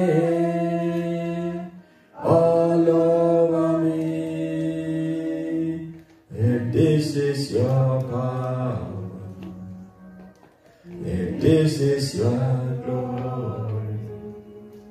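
A man singing a slow worship song unaccompanied into a microphone, in long held notes. The singing comes in four drawn-out phrases, each broken off by a short pause for breath.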